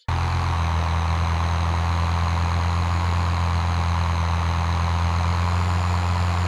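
Heavy vehicle's engine running steadily at an even idle-like pace, a low drone that cuts in abruptly at the start with no rise in pitch.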